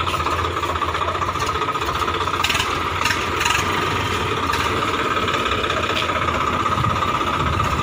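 Swaraj 855 FE tractor's three-cylinder diesel engine running steadily at low revs.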